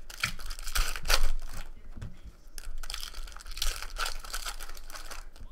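Foil wrappers of Topps Chrome baseball card packs being torn open and crinkled by hand: irregular crackling and tearing, loudest about a second in.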